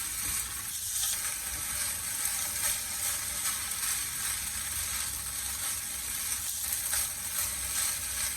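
Fried rice with corned beef and boiled vegetables sizzling steadily in a pan over a high flame, with faint stirring.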